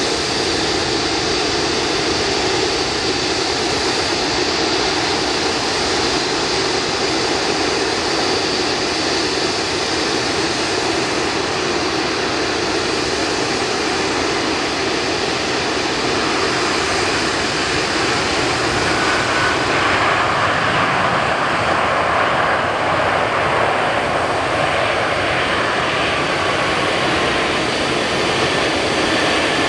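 Airbus A320 jet engines as the airliner touches down and rolls out along the runway: a steady jet whine with a thin high tone. It grows a little louder and fuller about two-thirds through.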